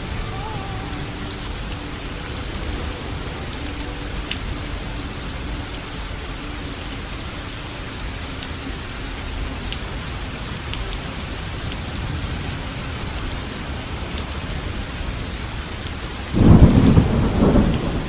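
Steady rain falling, with a loud roll of thunder breaking in near the end.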